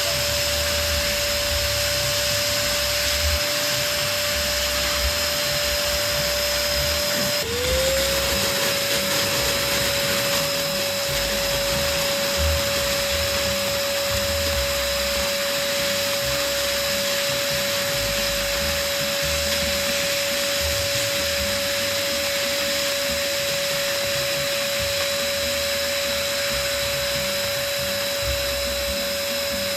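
Electric balloon pump motor running with a steady whine and air hiss. About seven seconds in, its pitch dips briefly and climbs back up.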